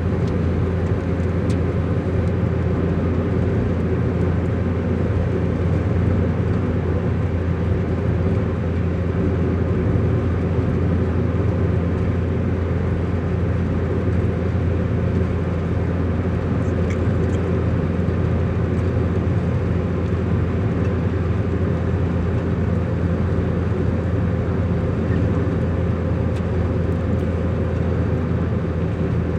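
A motor vehicle driving steadily along a road: a constant low engine drone with road noise, holding the same pitch throughout.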